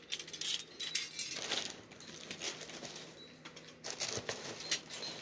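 Small brass bells on a black metal wind chime jingling and clinking irregularly as the chime is handled, quieter for a couple of seconds in the middle.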